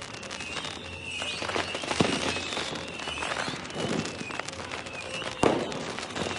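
New Year's Eve fireworks going off: continuous crackling and popping with high whistling tones. Two louder bangs come about two seconds in and again near the end.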